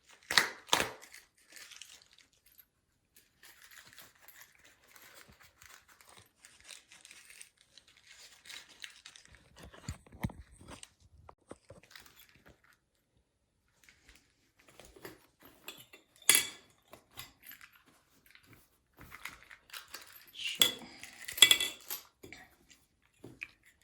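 Plastic packaging being opened by hand: crinkling and tearing with scattered small clicks, in a few louder bursts near the start and in the last third.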